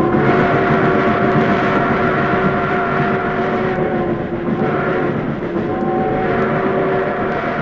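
The Skunk Train of the California Western Railroad running, with a long whistle held at a steady pitch over the rumble of the train. The whistle breaks off briefly about halfway through and then sounds again. It is heard off an old vinyl record.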